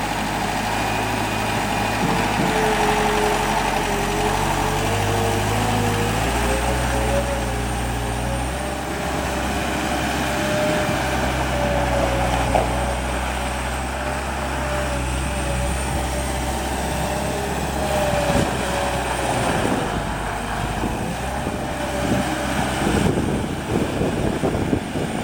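Gehl 6635 skid steer's engine running, its speed stepping up and down a few times, with a wavering whine over it and some knocks and clatter near the end.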